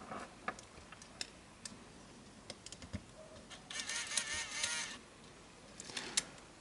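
Sony TCD-D3 DAT Walkman's exposed tape transport mechanism running a DAT cassette in test mode. It gives scattered light clicks, with a brief whir of about a second nearly four seconds in.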